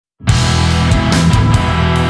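Loud rock music with a steady drum beat, starting abruptly a moment in.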